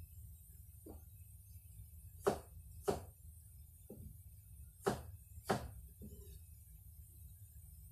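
A series of sharp knocks or taps on a hard surface, about seven of them at irregular intervals, over a low steady background hum.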